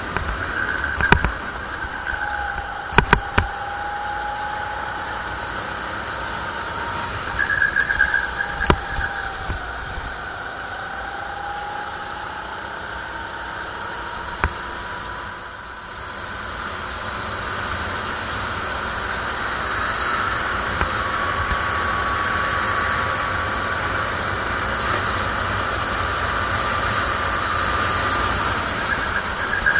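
CRG rental kart's 270 cc four-stroke engine running at speed, its pitch rising and falling with the throttle through the corners, under a steady hiss. A few sharp knocks come in the first third; about halfway through the engine drops off briefly, then climbs steadily as it accelerates.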